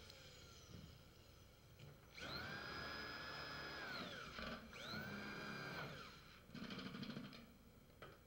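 Cordless drill driving screws through a steel wall panel into the building frame. It runs twice: a steady motor whine of about two seconds and then about one second, each spinning up at the start and winding down at the end, followed by a short rattling burst.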